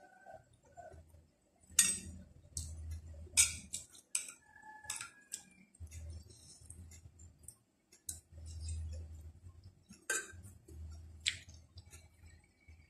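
Close-miked eating sounds: chewing and mouth noises on a mouthful of spicy minced-pork larb. A spoon and fork clink and scrape against a plate in sharp clicks now and then.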